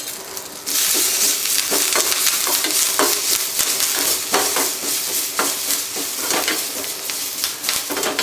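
A tadka of mustard seeds, urad dal, curry leaves, chillies and grated ginger sizzling in hot oil in a steel kadai. The sizzle jumps loud under a second in, and a spatula stirs through it with repeated scraping strokes against the pan.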